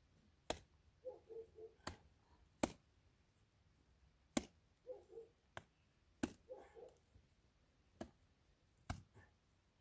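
Handfuls of wet mud plaster slapped by hand onto an old mud wall being replastered: about eight sharp, separate slaps at uneven intervals.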